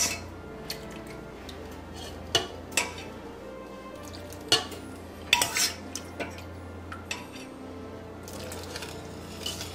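A metal ladle clinking now and then against a saucepan and a mixing bowl as hot milk is ladled into whisked egg yolks. The sharp clinks come at uneven intervals, with a few close together around the middle, over a faint steady low hum.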